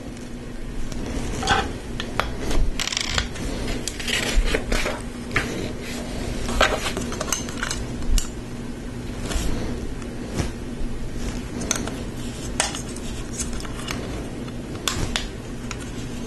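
Lego Technic plastic pieces clicking and clattering as they are handled and pressed together, in irregular short clicks throughout.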